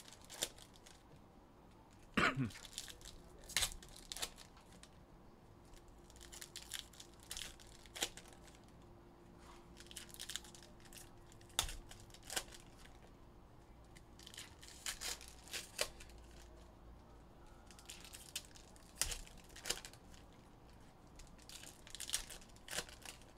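Foil trading-card pack wrappers (2021 Upper Deck Goodwin Champions) being torn open and crinkled by hand: scattered sharp crackles and rustles, the loudest about two seconds in.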